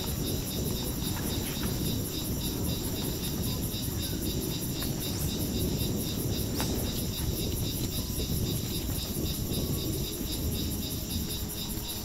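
A steady chorus of crickets and other insects, with a fast, even pulsing at the top of the chorus, over a continuous low rustling noise.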